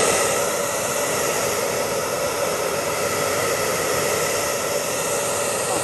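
Handheld hair dryer running steadily: an even rush of blown air over a constant motor hum. It is heating vinyl wrap film to soften it so it can be stretched into place.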